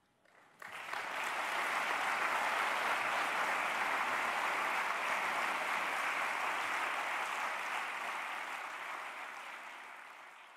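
Large audience applauding, starting about half a second in, a dense steady clapping that fades away over the last few seconds.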